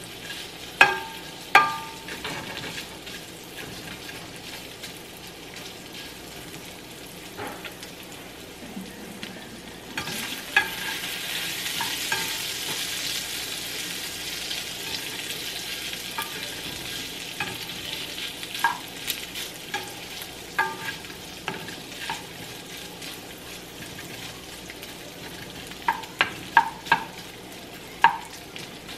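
Sliced beef sausage sizzling in a nonstick frying pan while a spatula scrapes and knocks against the pan, tossing the pieces. The knocks come in clusters near the start and near the end, and the sizzle grows louder for several seconds in the middle.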